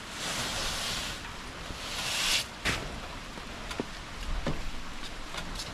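Woven plastic sacks being dragged and handled: two long rustling scrapes, the second building and cutting off sharply about two and a half seconds in, then a few light knocks.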